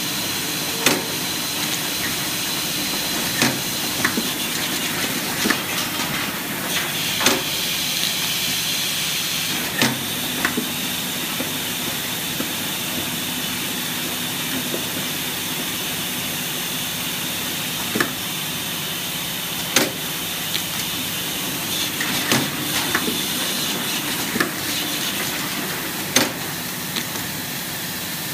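Four-head linear cap lining machine running: a steady hiss and hum, struck by sharp clacks every two to three seconds at uneven spacing as the machine cycles.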